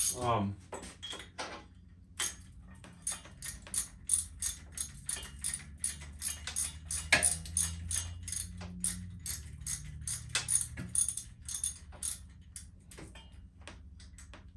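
Ratchet wrench clicking in short back-and-forth strokes as a motorcycle spark plug is loosened and removed; the plug is a little stiff coming out.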